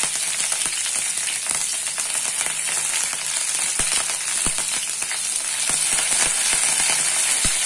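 Curry leaves and mustard seeds frying in hot oil in a nonstick kadai: a steady sizzle with scattered sharp crackles and pops, a few louder ones about four seconds in and near the end. This is the tempering (baghar) stage, with the oil hot enough for the leaves to splutter.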